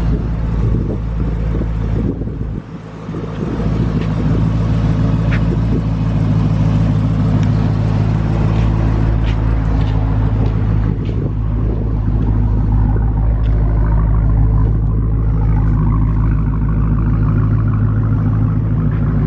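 2016 Dodge Challenger SRT Hellcat's supercharged 6.2-litre HEMI V8 idling steadily through Vibrant aftermarket mufflers, a deep, even rumble with no revving. The sound dips briefly about three seconds in.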